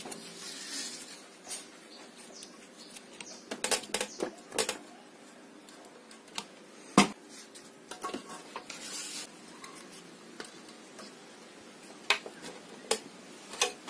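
Scattered sharp clicks and small metallic clinks of a screwdriver working the clamp screw of a deflection yoke on a CRT picture tube's neck, with handling rustles. The taps cluster in the middle, with one louder click about halfway and a few more near the end.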